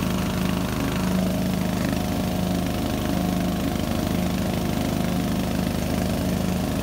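A Murray riding lawn mower's 15.5 hp Briggs & Stratton overhead-valve engine running steadily at an even speed as the mower is driven across the grass.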